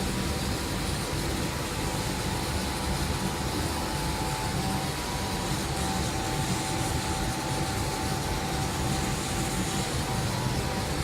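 1390 CO2 laser cutting machine running as it cuts fabric: a steady mechanical rush of air with two constant high whining tones.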